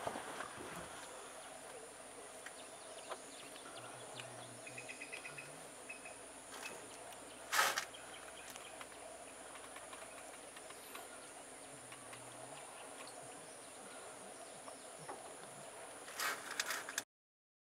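Steady high-pitched insect drone over faint outdoor ambience, with a short loud noise about seven and a half seconds in and another shortly before the sound cuts off about a second before the end.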